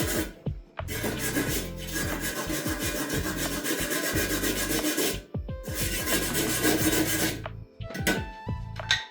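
Abrasive rubbing on a cast-iron cauldron lid: long scraping strokes of a few seconds each, with short pauses between them, while the lid's surface is worked during seasoning.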